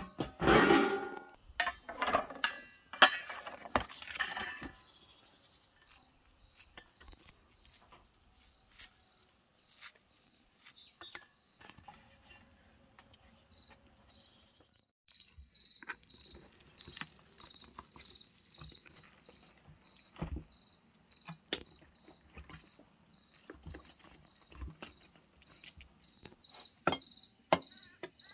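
A cricket chirping steadily: a short, high pulse repeated about two to three times a second, louder in the second half. A few loud noisy bursts in the first five seconds and scattered light clicks and knocks come through over it.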